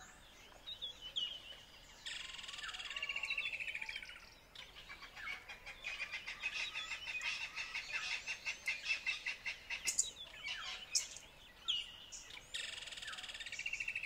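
High-pitched, bird-like chirping and rapid trilling calls in three bouts, the longest in the middle, with short falling whistles between them.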